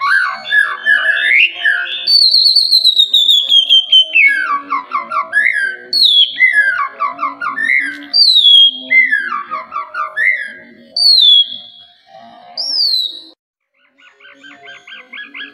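White-rumped shama singing: phrase after phrase of clear whistles sliding downward, alternating with quick stuttering runs of falling notes. After a short pause near the end it breaks into a fast, buzzy rattling trill.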